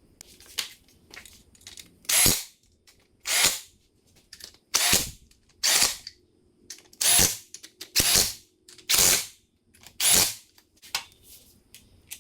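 A power tool running bolts down in about eight short bursts of half a second or so each, with small clicks of handling between: the main bearing cap bolts being run down on a freshly installed crankshaft before they are torqued.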